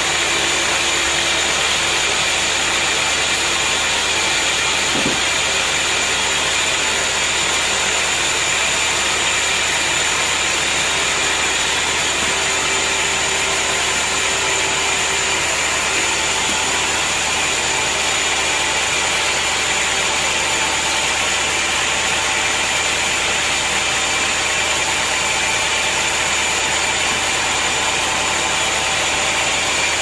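Horizontal band sawmill running steadily: an even mechanical drone with thin, steady high tones over it.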